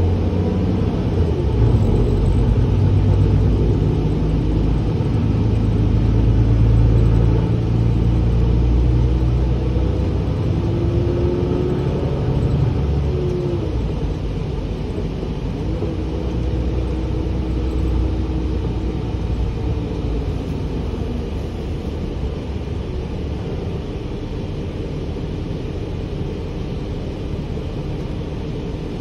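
Gillig Advantage city bus heard from inside the passenger cabin while under way: steady engine and road rumble with a drivetrain whine that glides up and down. It is loudest for the first dozen or so seconds, then eases off and stays lower for the rest.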